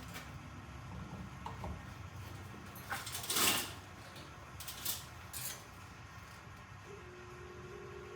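Electric fan plugged into a newly installed outlet, running with a low steady hum, which shows the outlet is live and working. A brief scraping rustle comes about three and a half seconds in, and a steady whine starts near the end.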